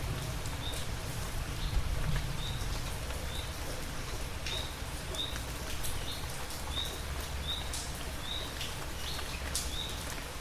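Steady rain with scattered drip clicks, and a bird repeating one short rising chirp about one and a half times a second.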